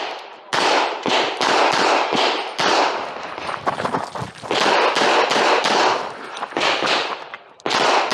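Semi-automatic pistol firing rapid strings of shots, often close pairs, during an IPSC competition stage. There are brief lulls about four and a half seconds in and again near the end.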